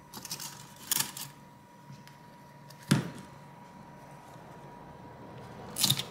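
A metal pry tool and fingers working a stuck loudspeaker module out of a smartphone's plastic mid-frame: three sharp clicks about a second, three seconds and six seconds in, the middle one loudest, over soft handling and scraping, with a faint steady tone underneath.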